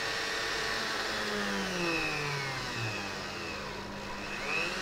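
Rotary tool running at a low speed setting, its flexible-shaft attachment driving a small bit into a thick PVC pipe tee to bore a hole. The motor whine slides down in pitch partway through and rises again near the end.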